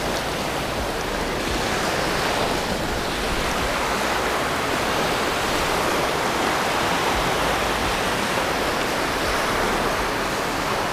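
Small waves breaking and washing through the shallow surf, a steady rush.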